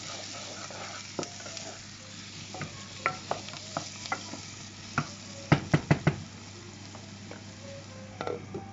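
Onion and tomato masala sizzling in oil in a saucepan while it is stirred, with scattered clicks of the utensil against the pan and a quick run of four knocks about halfway through.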